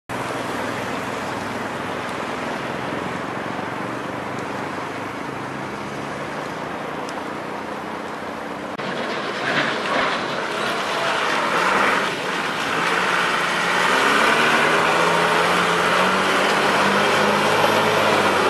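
Vehicle engine and traffic noise. About nine seconds in it turns louder, with a fire engine's engine as the truck drives past.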